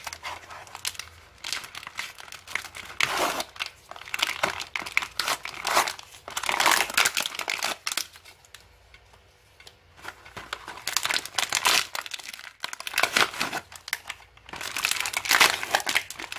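A toy gun's cardboard box and plastic wrapping being torn open and crinkled by hand. The crackly rustling comes in uneven bursts, with a short lull about halfway through.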